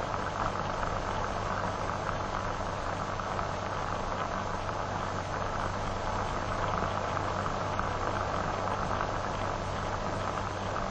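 Steady hiss with a low hum from an old film soundtrack, with no other distinct sound.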